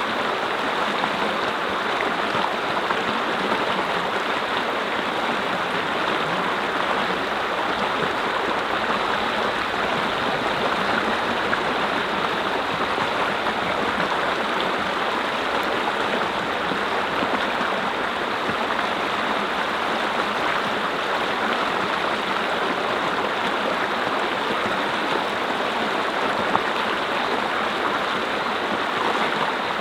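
Mountain brook flowing over rocks: a steady, even rush of running water.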